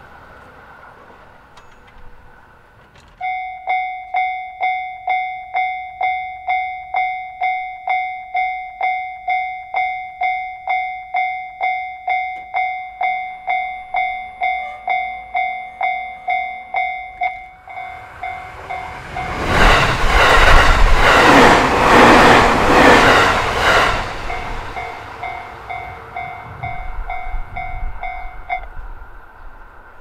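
Japanese level-crossing warning bell dinging about twice a second, starting a few seconds in. About eighteen seconds in a train comes up and passes over the crossing, loudest for several seconds, with wheels clacking over the rail joints, then fades; the bell stops near the end.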